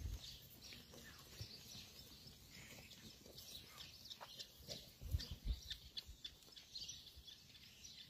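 Faint hooves of a flock of White Dorper sheep shuffling and clicking on stony dirt, many small irregular clicks, with a few low thumps about five seconds in.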